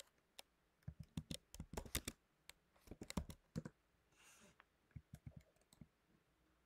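Computer keyboard typing: runs of faint key clicks during the first few seconds, then a few more keystrokes about five seconds in.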